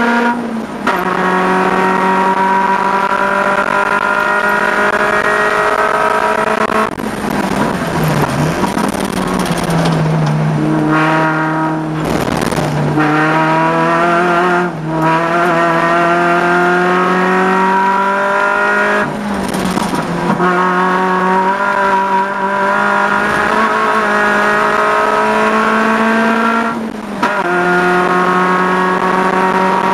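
Peugeot 106 race car's four-cylinder engine heard from inside the cabin at full throttle, its pitch climbing steadily through each gear and dropping sharply at upshifts about a second in, about two-thirds through, and near the end. Through the middle the note falls and wavers with more tyre and road hiss as the car slows and turns for a corner.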